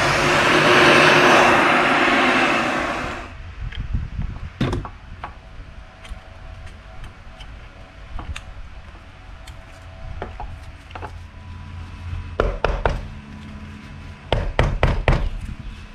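A loud, steady rushing noise cuts off abruptly about three seconds in. After it come scattered light clicks and knocks of small motor parts and hand tools being handled, with quick clusters of knocks near the end.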